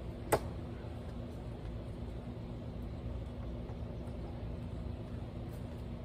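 A SOG Trident AT folding knife is thrown into a wooden target board: one sharp knock of the knife hitting the wood about a third of a second in. After it there is only a steady low background rumble.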